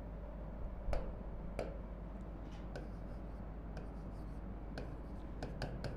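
Marker pen writing on a whiteboard: faint scratching and scattered light taps as the strokes go down, the sharpest tap about a second in, over a low steady hum.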